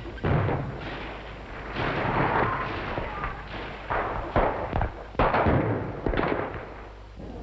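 Gunfire and explosions: a series of about half a dozen bangs, roughly one a second, each trailing off in a rumble.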